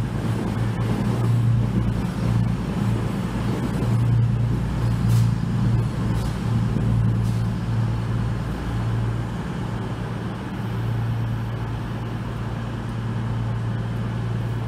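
A CrossCountry Voyager diesel multiple unit's underfloor diesel engines running with a steady low hum as the train rolls slowly into the platform, with a few faint clicks about halfway through.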